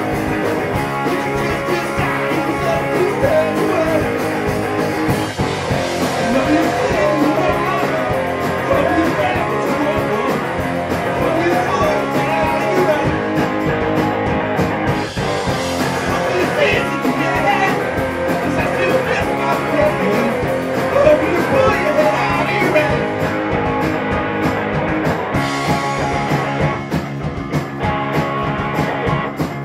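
Rock band playing live, with a drum kit and cymbals driving a steady beat under electric guitars.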